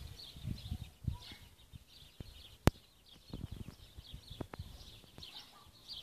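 Many small birds chirping in a busy chorus of short, high calls, over irregular low rumbling noise. A single sharp click cuts through about two and a half seconds in.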